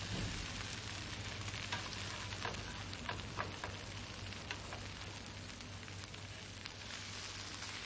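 Food sizzling steadily as it fries in a pan, with scattered small crackles and pops.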